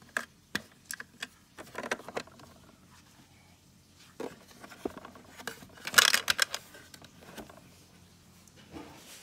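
Small plastic dollhouse toys and furniture being handled and set down: scattered clicks, taps and clatters, with a louder burst of clatter about six seconds in.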